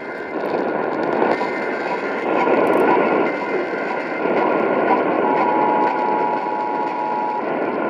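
Emergency Alert System broadcast received on a radio through heavy static hiss, with faint high tones in the first few seconds, then the two-tone EAS attention signal sounding steadily for about two seconds, starting about five seconds in, announcing a Child Abduction Emergency alert.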